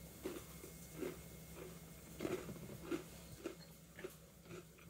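A person chewing a crisp rice cracker: soft, faint crunches about two a second.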